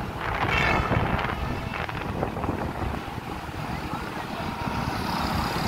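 Wind buffeting the microphone on a moving two-wheeler, over the road and engine noise of passing traffic.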